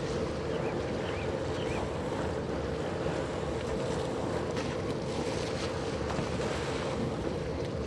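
Steady machinery drone of the 1949 steamship Wilfred Sykes, a steam-turbine Great Lakes bulk freighter, as it passes close by, with a constant hum and low rumble and wind noise on the microphone.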